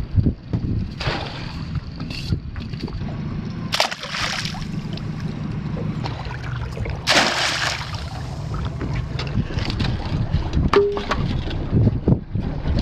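Water sloshing and splashing around a small aluminium boat, with wind buffeting the microphone. A few louder splashes, the biggest about seven seconds in, as a net trap is hauled up out of the water, and a knock about four seconds in.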